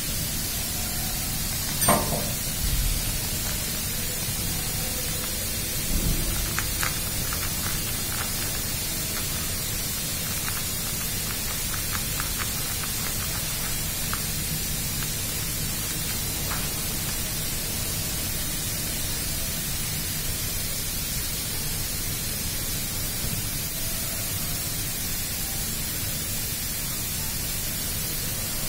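Steady rushing noise throughout, with a sharp click about two seconds in, a low knock about six seconds in, and then a run of small clicks as metal hose fittings are handled.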